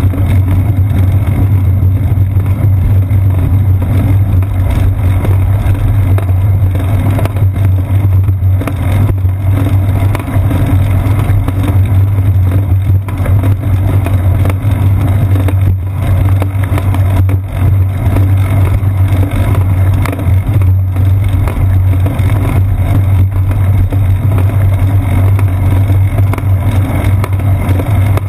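Steady, loud low rumble of wind and road vibration picked up by a camera mounted on a bicycle's seat post as the bike rolls along a paved path.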